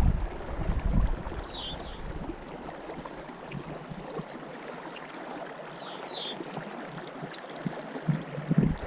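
Flowing river water. Wind buffets the microphone at the start and again near the end, and a high, short falling chirp sounds twice, about a second and a half in and again around six seconds.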